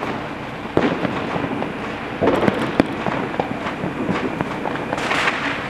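Fireworks and firecrackers going off: sharp bangs about a second in and a cluster around two and a half seconds, amid scattered crackling, with a hissing burst about five seconds in.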